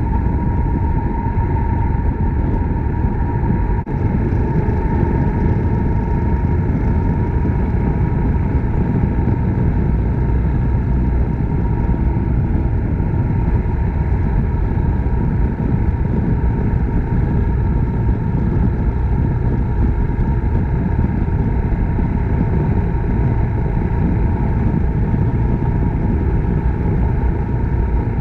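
Suzuki Grasstracker Big Boy's single-cylinder four-stroke engine running steadily while riding, under heavy low rumble of wind and road noise.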